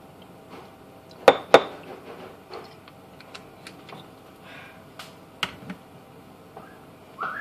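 Glassware and bottles knocking and clinking on a countertop while drinks are mixed: two sharp knocks a moment apart about a second in, then a few lighter clicks later.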